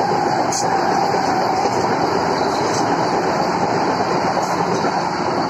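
Vande Bharat Express electric train set passing through the station at speed: a loud, steady rush of wheels on rail and air as the coaches go by.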